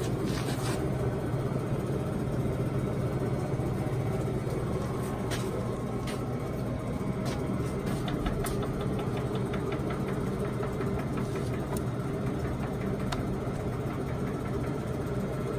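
Poreba TPK80 engine lathe running under power: a steady hum from its motor and geared headstock. Scattered clicks and knocks come as the apron levers are worked, with a quick run of ticks about halfway through.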